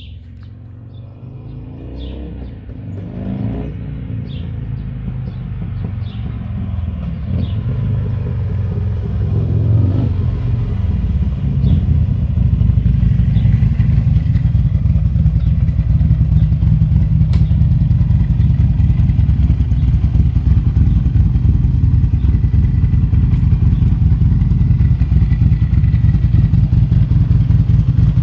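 Buell XB12S motorcycle's air-cooled V-twin growing steadily louder as it approaches, with a few rises and falls in pitch from the throttle, then running loud and steady close by from about twelve seconds in.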